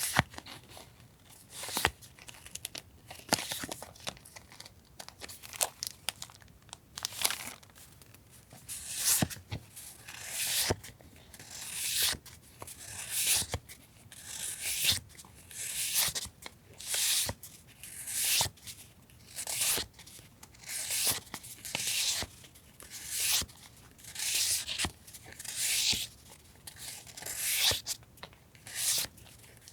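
Paper being handled and torn: scattered rustling at first, then a steady run of tears, about one every second and a half.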